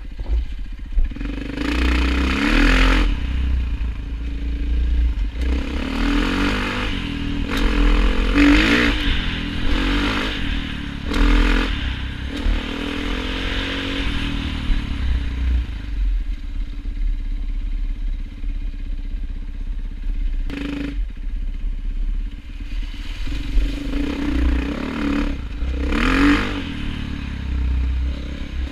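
A motor vehicle's engine running under way, its pitch rising and falling with the throttle over a steady low rumble, with rattling and several short bursts of noise.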